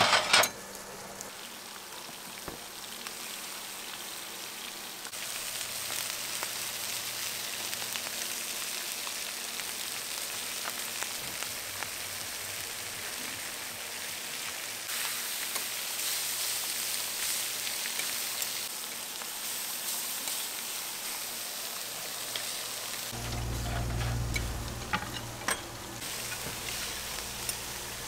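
Food frying in hot oil: a steady sizzle that grows louder about five seconds in. A low rumble comes in for a few seconds near the end, with a few sharp clicks.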